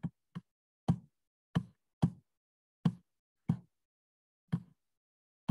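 A series of about nine short, sharp knock-like clicks with a dull thud, spaced unevenly about half a second to a second apart: a computer mouse or keyboard being worked to scroll page by page through a document.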